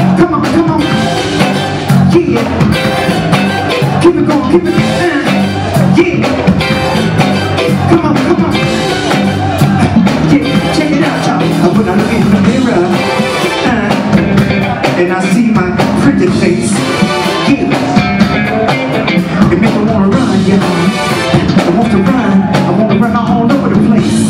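Live funk band playing at full volume: drum kit, electric bass, electric guitar and keyboards over a steady beat, with a lead singer's voice at times.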